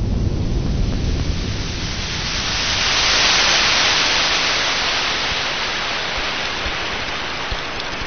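Sea surf washing up a sandy beach: a low rumble at first, then a hiss of breaking water that swells to its loudest about three seconds in and slowly eases off.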